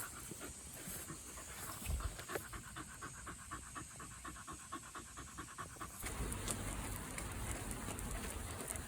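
Shiba Inu dog panting quickly and rhythmically, about five breaths a second. About six seconds in, a louder, even background noise covers the panting.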